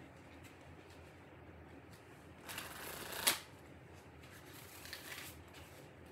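A deck of tarot cards being shuffled by hand: a rush of cards sliding together that ends in a sharp snap a little after three seconds in, then a softer second shuffle about a second later.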